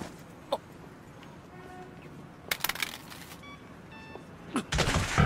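Quiet stretch of an anime soundtrack with a few short electronic beeps about three and a half seconds in, a brief noisy rustle before them, and a louder noisy sound just before the end.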